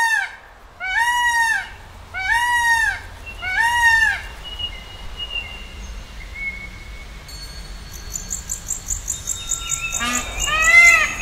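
Birds calling: four loud, evenly spaced arched calls about a second apart, then quieter thin whistles and a fast high twitter, and a new run of loud arched calls starting near the end.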